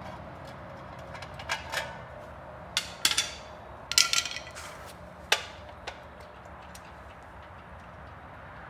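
Metal clinks and knocks of hand tools and parts against a small-block Chevrolet V8 hanging on an engine hoist: a handful of sharp strikes, loudest about three to four seconds in, a few of them ringing briefly, then it quiets down.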